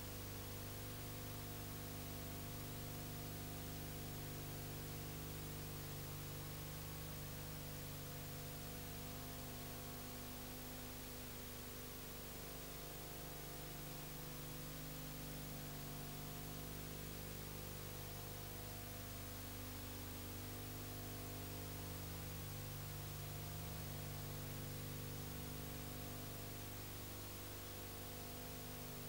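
Steady electrical hum with a constant hiss over it, recording noise with no sound from the filmed scene.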